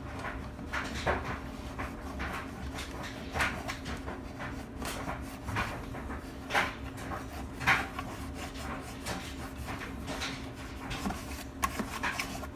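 Old foam seal being scraped and pulled off a plastic heater box: irregular short scrapes and rubs, the loudest about three quarters of the way in, over a faint steady hum.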